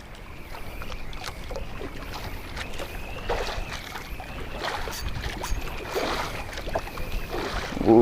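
Choppy water slapping and lapping against the hull of a small paddle boat in strong wind, with irregular slaps every second or so.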